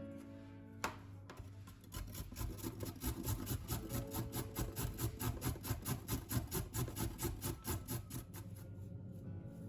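Quick rhythmic scraping strokes, about five a second, that start about two seconds in and stop near the end, with a single sharp click about a second in and soft guitar music underneath.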